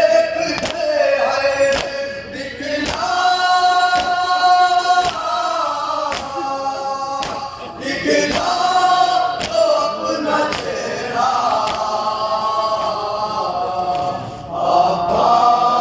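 Men chanting a Shia nauha lament in chorus, a led melody answered by the group, with rhythmic matam, hands slapping on chests, about once a second.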